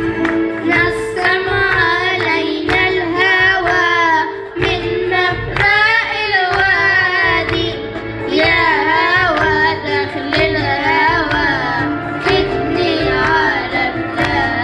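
Children's voices singing a song with a wavering, ornamented melody into microphones, over instrumental accompaniment with steady held notes, one boy holding a ukulele.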